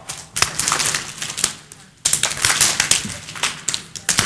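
Many scattered soft taps and pats from an audience letting their raised hands drop onto their laps and chairs, irregular and overlapping.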